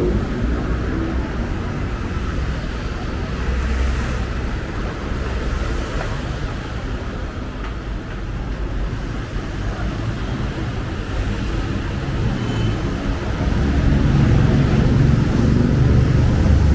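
Busy city road traffic: a steady wash of engine rumble and tyre noise from passing cars and other vehicles. It grows louder in the last few seconds as heavier or closer traffic goes by.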